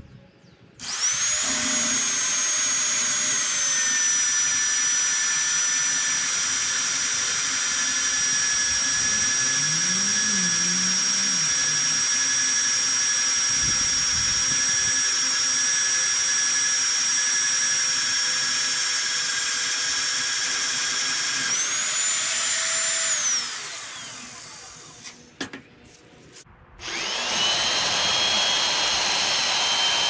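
Electric magnetic drill press boring a hole through a steel I-beam with an annular cutter: the motor spins up with a steady high whine that sags slightly in pitch as the cutter bites. Near the end of the cut the pitch rises briefly, and the motor then winds down with a falling whine. A few seconds later it starts again for the next hole.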